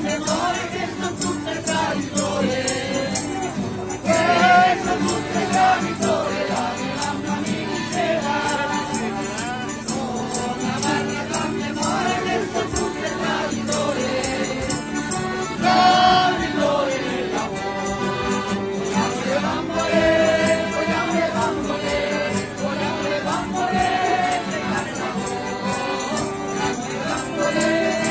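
A small folk choir of men and women singing a maggiolata, a traditional Tuscan May song, in chorus, accompanied by accordion, strummed guitars and a shaken tambourine keeping a steady beat.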